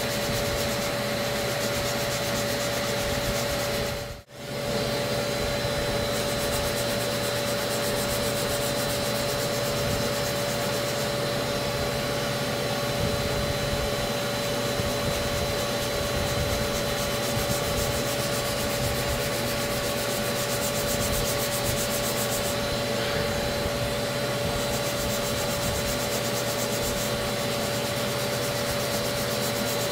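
Hand block sanding of body filler on a car's wheel arch: a sanding block rubbing back and forth in continuous strokes, over a steady hum. The sound drops out briefly about four seconds in.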